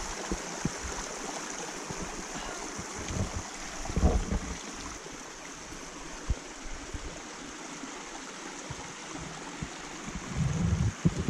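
Steady rushing of a small mountain stream cascading over granite, with a few short low thumps about four seconds in and again near the end.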